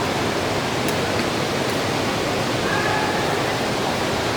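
Steady, even hiss of heavy rainfall.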